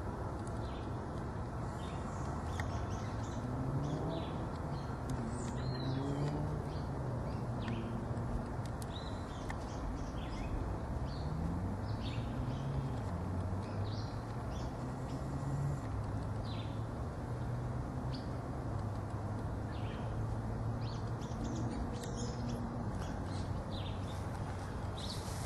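Small songbirds chirping in short, scattered calls over a steady background hiss, with a low hum that wavers in pitch through the middle.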